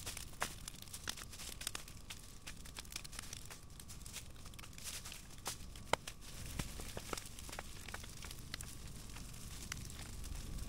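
Brush-pile wood fire crackling, with irregular sharp pops and one louder pop about six seconds in.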